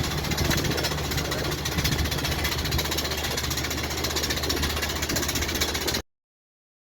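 Airbus A319 jet engine rattling in a rapid, continuous clatter over a steady low hum. It cuts off abruptly to silence about six seconds in.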